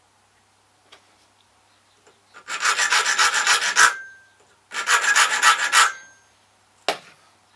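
Hand file rasping across a key blank in two quick bursts of rapid back-and-forth strokes, taking a little more metal off the key's cuts, followed near the end by a single sharp click.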